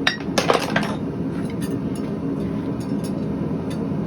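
Steel tools and workpiece clinking and scraping in a blacksmith's shop: a quick cluster of metallic clinks about half a second in, then a few lighter clinks, over a steady low rumble.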